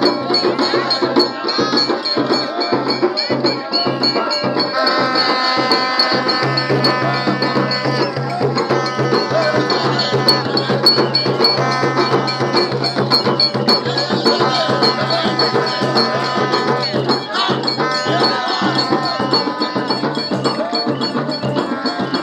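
Crowd singing with hand-held frame drums beating a steady rhythm.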